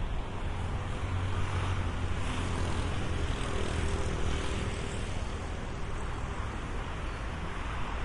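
Steady traffic noise, with a stronger low hum in the first few seconds.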